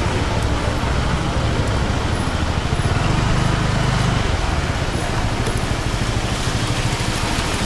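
Small moped engine running steadily under a rider on the move, its low drone over a constant rushing noise.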